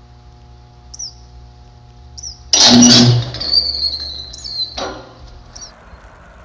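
High-voltage disconnect switch drawing an electric arc as it is operated by hand: a sudden loud crackling blast about two and a half seconds in, lasting about half a second, then a fading high whine. A steady electrical hum runs underneath.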